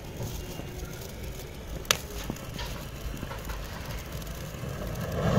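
Homemade rocket packed with mixed firecracker powder burning in a glass bottle, its flame and smoke pouring from the base without lifting off. One sharp crack about two seconds in, and the burning grows louder near the end.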